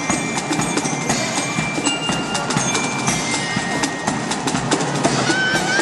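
Marching band playing, led by drums and percussion with crisp clicks in a quick, steady rhythm and a few held bell-like tones.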